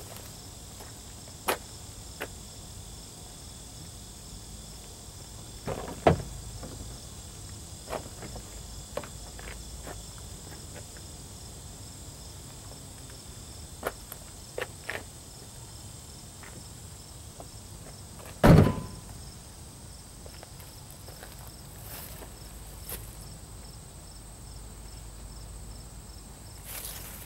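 Insects chirring steadily outdoors: a high even tone with a faint pulsing trill beneath it. Scattered sharp knocks come through, and one louder thump lands about two-thirds of the way through.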